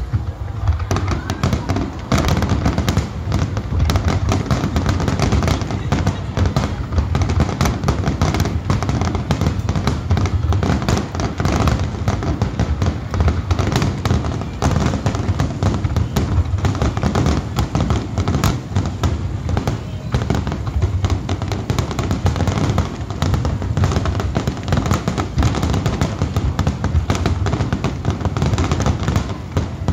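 Fireworks display in full barrage: firework shells bursting in rapid, overlapping succession with crackling, a dense continuous series of bangs that sets in about a second in.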